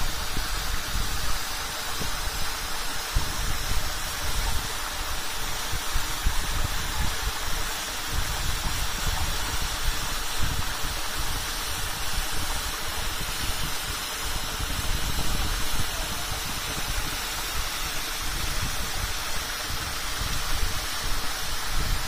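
Waterfall of about 20 metres pouring onto rocks, a steady rush with a low, uneven rumble underneath.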